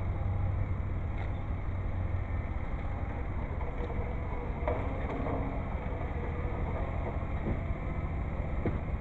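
John Deere 318 garden tractor's two-cylinder Onan engine running steadily as the tractor pulls forward, with a few short clinks of a shovel working gravel.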